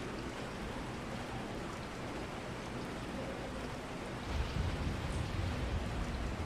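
Steady rain falling, an even hiss of drops. About four seconds in, a low rumble swells for a couple of seconds beneath it.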